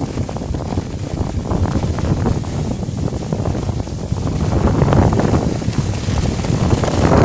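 Wind buffeting the microphone of a handheld camera moving downhill on skis, mixed with the rough scraping of skis over groomed snow; it grows louder about five seconds in as speed picks up.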